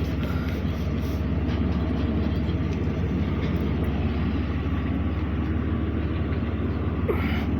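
Steady road and engine rumble of a vehicle being driven.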